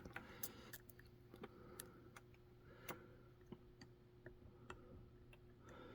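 Faint, irregular small clicks of a Peterson hook pick working the pins of a BKS Detect 3 euro cylinder held under tension from a top-of-keyway turning tool, with a faint steady hum underneath.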